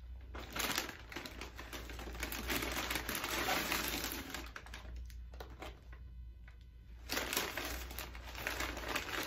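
Crinkling and rustling of McDonald's paper takeaway packaging, a brown paper bag and a fries carton being handled. It comes in two stretches, with a quieter lull in the middle.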